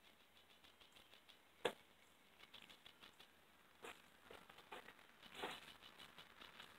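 Near silence with faint, scattered scuffs and clicks of footsteps on dirt and gravel, and one sharper click about a second and a half in.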